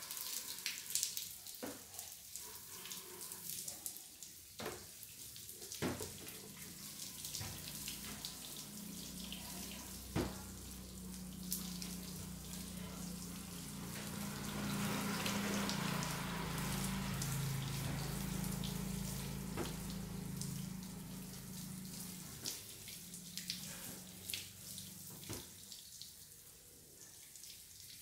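Water running and dripping off a car's soapy body during a hand car wash, with many small drips and splashes. The flow swells in the middle, with a low hum beneath it, then eases off near the end.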